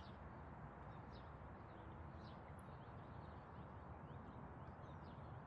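Near silence: faint background hiss with a few faint, short high chirps.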